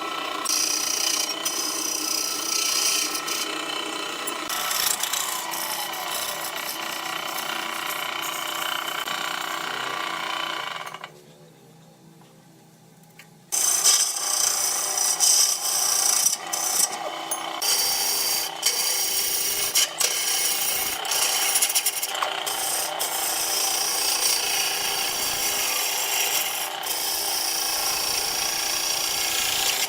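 Wood lathe running with a tool scraping against the turning wood, a steady hum under a rough rasping noise. It goes much quieter for about two and a half seconds near the middle, then the scraping resumes with sharp catches.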